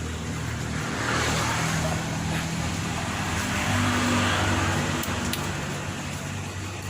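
A motor vehicle engine humming steadily, with a rushing road noise that swells twice, as vehicles going past would.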